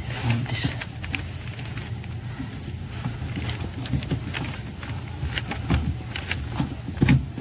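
Scattered small clicks and knocks of hand tools and plastic and metal parts being worked under a car's dashboard, over a steady low hum, with a louder knock near the end.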